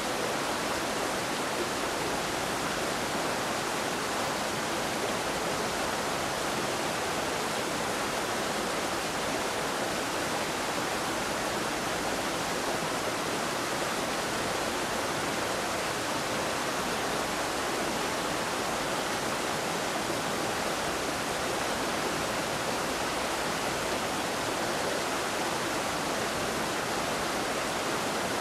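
A steady, even hiss like static or rushing water, unchanging throughout, with no distinct train or engine sounds standing out.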